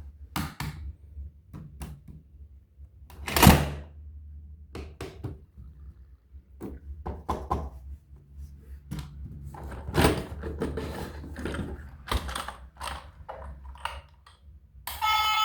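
Toys and their packaging being handled: a string of separate knocks and clatters over a low hum, with a louder thunk about three and a half seconds in. Music starts just before the end.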